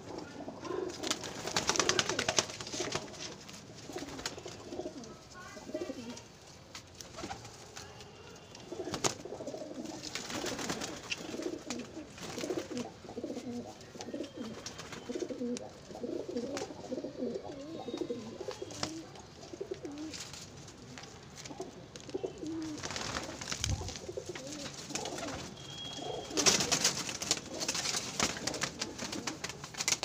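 Domestic pigeons cooing in a loft, a wavering low warble that runs on and off, with a few louder rustling bursts near the start and near the end.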